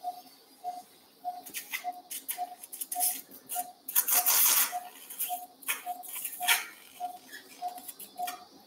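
Anaesthesia monitor beeping steadily, a short tone about twice a second, the patient's pulse beep. Over it come scattered clicks and rattles of metal surgical instruments, with a louder rustling clatter about four seconds in.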